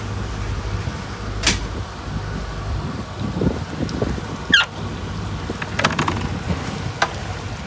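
Steady low mechanical hum that stops about three seconds in, then a few sharp clicks and knocks and a short squeak as the boat's hinged transom gate is handled.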